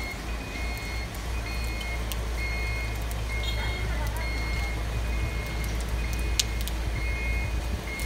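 Kobelco RK350 rough-terrain crane's warning alarm beeping repeatedly in short, evenly spaced high beeps over the steady low rumble of its diesel engine.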